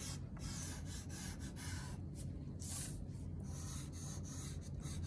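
A stick of chalk pastel scratching back and forth on drawing paper in quick, uneven strokes, a few a second, as colour is laid in.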